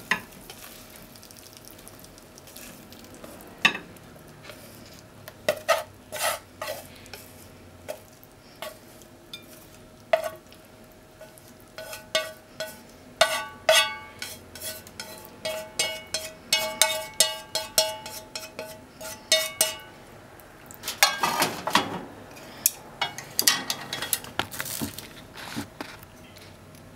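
Wooden chopsticks scraping and tapping against a frying pan and a ceramic plate as a stir-fry is served out, giving many sharp clinks, some with a short ring. Denser scraping comes twice near the end.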